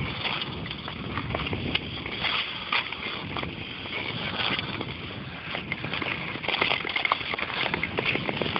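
Long-blade Nordic skates scraping and gliding over rough natural lake ice, stroke after stroke, a steady hiss broken by frequent short rasps.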